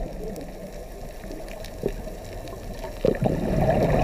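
Underwater ambience: low, muffled rushing and bubbling of water with a few faint clicks, growing louder about three seconds in.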